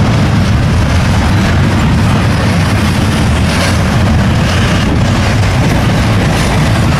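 Strong wind buffeting the microphone in a steady, heavy low rumble, over a freight train running past.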